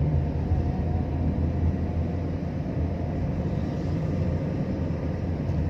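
A car driving along, heard from inside the cabin: a steady low rumble of engine and road noise.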